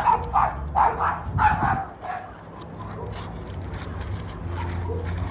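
A dog barking in a quick run of short yapping barks, about two a second, that stops about two seconds in; a steady low hum carries on after.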